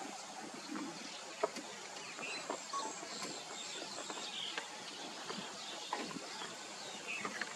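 Outdoor ambience of small birds chirping, with scattered sharp clicks and snaps, the loudest about one and a half seconds in.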